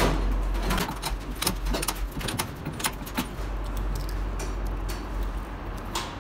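Small metal parts clicking and clinking irregularly as hands fit the delivery valve holders and fittings on top of a six-cylinder Denso inline diesel injection pump, over a steady low hum.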